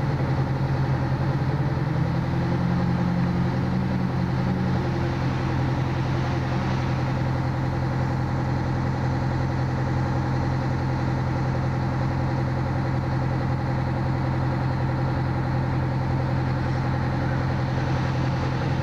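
Fire engine idling, a steady low hum that does not change; a slightly higher second hum fades out about five seconds in.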